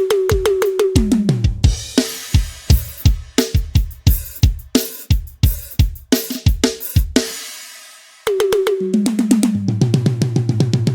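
Sampled acoustic drum kit in Addictive Drums, triggered from an Alesis Nitro mesh electronic kit. It opens with a tom fill stepping down from high to low toms, then a groove of kick, snare and cymbals that ends on a ringing cymbal. After a short pause about eight seconds in, another fill runs down from the high tom to the floor tom.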